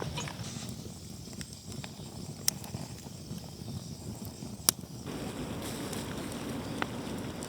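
Outdoor ambience with a few sharp clicks or snaps. A steadier, fuller rushing noise takes over abruptly about five seconds in.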